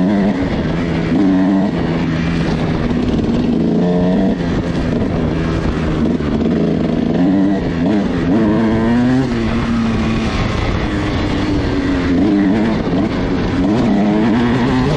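Kawasaki KX dirt bike engine running under way on a trail, its pitch rising and falling as the throttle is opened and rolled off. The engine has a freshly rebuilt piston and is being run in.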